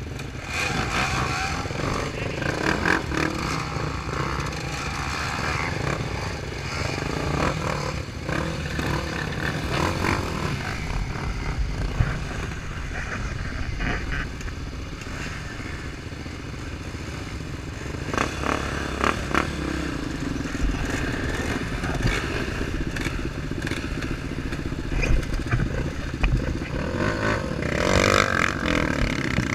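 An off-road vehicle's engine running continuously over rough ground, with scattered knocks and rattles. It gets louder near the end.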